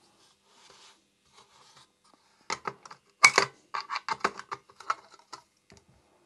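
A screwdriver scraping and clicking against a screw and the circuit board in a small plastic enclosure. Faint scratchy rubbing comes first, then a run of sharp clicks and scrapes from about two and a half seconds in, the loudest one near the middle.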